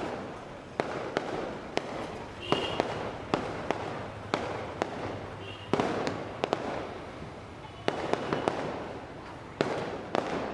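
Diwali firecrackers going off: sharp bangs at irregular intervals, sometimes several within a second, over a continuous haze of more distant crackling and booming.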